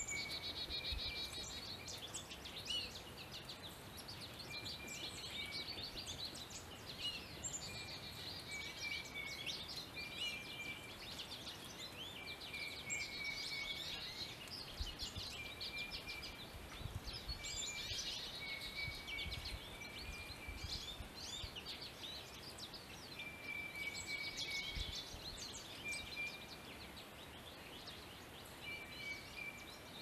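Several songbirds calling and singing at once: a busy chatter of high chirps and trills, with short, level whistled notes repeating every second or two.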